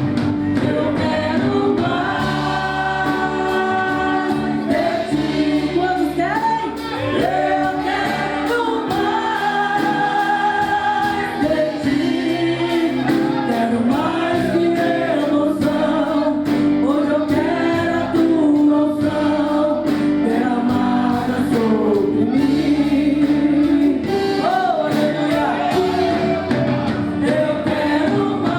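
Live gospel worship music: singers in chorus over a band with drums and bass, in a large hall.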